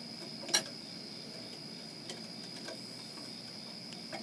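Bare copper ground wires being handled and lined up at a junction box: one sharp metallic click about half a second in, then a few fainter clicks, over a faint steady high-pitched whine.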